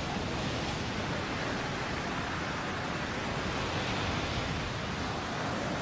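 Surf breaking and churning over the shore, a steady rush of waves and foaming water.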